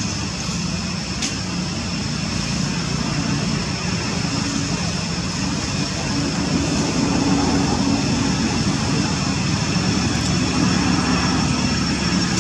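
Steady low engine drone that rises slightly in level about halfway through, with a thin steady high-pitched tone above it.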